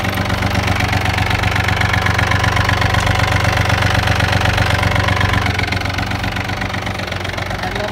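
Yanmar F-180 tractor's three-cylinder diesel engine idling steadily.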